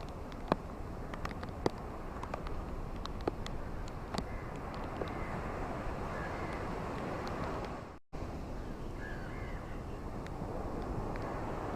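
Ocean waves washing steadily, with scattered sharp crackles and a few faint bird calls. About eight seconds in the sound fades briefly to silence and then resumes, like a splice in the recording.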